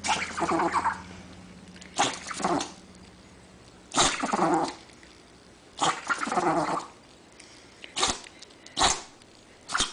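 A dog sneezing over and over: about seven sudden sharp bursts, one to two seconds apart, the later ones shorter and quicker.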